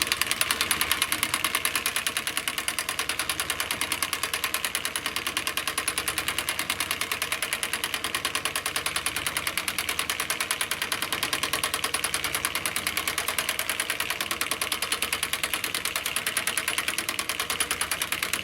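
DeWalt DCF899B 20V brushless 1/2-inch impact wrench hammering in one long unbroken run of rapid, even impacts, set to its lowest speed and driving the crank that raises a solar panel, the harder direction of the lift.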